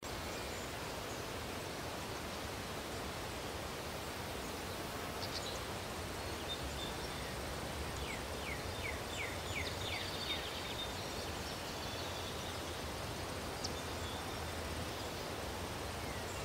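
Steady woodland ambience, an even outdoor hiss, with faint bird chirps, including a quick run of short descending chirps about eight to nine and a half seconds in.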